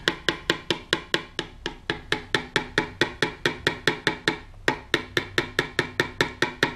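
A cup of freshly mixed plaster patching compound rapped repeatedly on a wooden tabletop, sharp knocks at about four or five a second with a short break a little past four seconds in. The tapping brings air bubbles up out of the slurry before it is poured into the mold.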